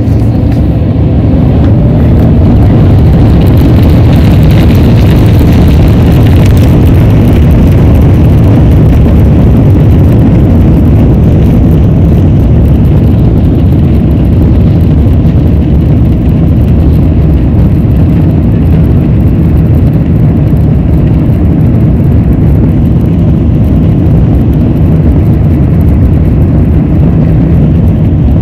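Airbus A350-900's Rolls-Royce Trent XWB engines spooling up to takeoff thrust, heard inside the cabin: a rising whine over the first couple of seconds, then a steady loud roar.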